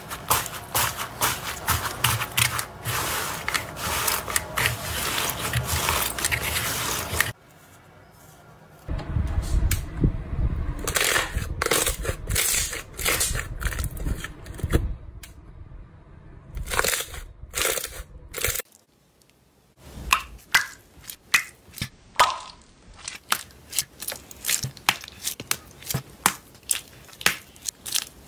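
Hands pressing and squishing slime. For the first seven seconds a crunchy slime gives dense crackling. It then changes to softer squelching with scattered crackles, and after a short quiet gap to separate sharp crackles and pops.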